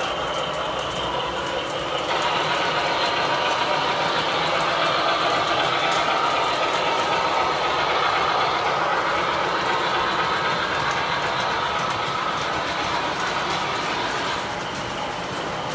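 O scale model freight trains running past on the layout's track: a steady noise of wheels and motors, louder from about two seconds in and easing off near the end.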